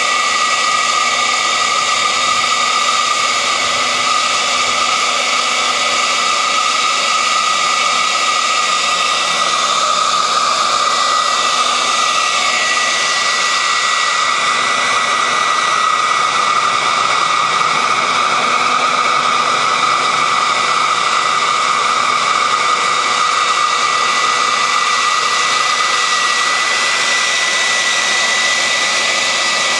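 Small high-pressure water pump on a model fire truck running: a steady high-pitched electric motor whine over a loud hiss.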